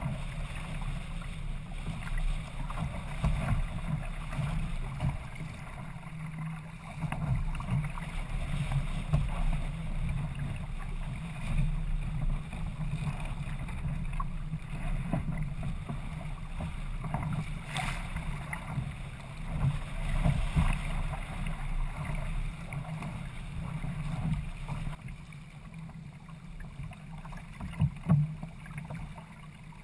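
Water washing and splashing along the hull of a Hobie Adventure sailing kayak moving under sail through choppy water, mixed with wind buffeting the microphone. The noise surges and eases unevenly, with a couple of sharper splashes, one near the end.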